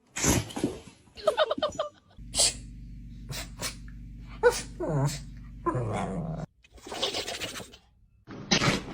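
Dogs sneezing one after another: a string of short, sharp sneezes, with a couple of brief pitched dog vocal sounds among them.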